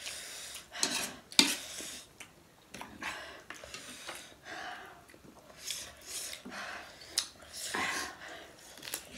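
Forks and spoons clinking and scraping on ceramic plates during a meal of noodles, in short irregular strokes with a few sharp clicks, along with noodles being slurped.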